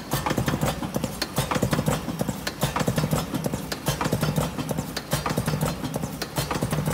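Electric cigarette filling machine running, with a steady motor hum under rapid, irregular clicking and clacking from its filling mechanism.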